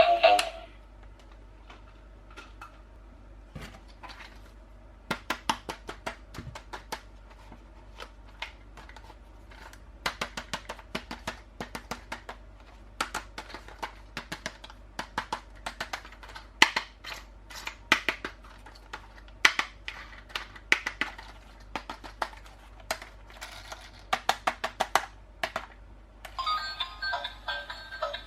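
Irregular clusters of sharp clicks and crackles, like plastic toy packaging being opened and handled. Electronic music with synthetic singing stops about half a second in and starts again near the end.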